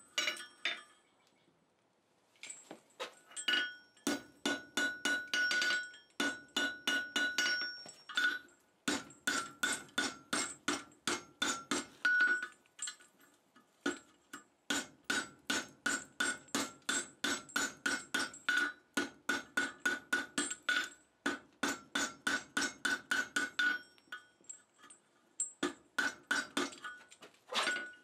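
Hand hammer striking a red-hot round-bar chain link on a steel anvil, each blow ringing the anvil, about three blows a second. The blows come in runs with short pauses as the link is turned and reshaped on the horn and face.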